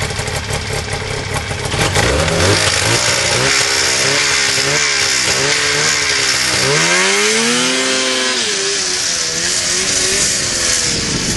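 Arctic Cat snowmobile engine running and revved in short wavering blips, then accelerating as the sled pulls away, its pitch rising and then falling.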